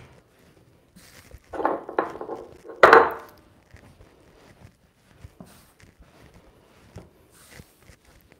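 Hands kneading a shortcrust pastry dough made with sunflower oil on a floured countertop: soft pressing, rubbing and light thuds of dough on the surface, with two louder stretches about two and three seconds in.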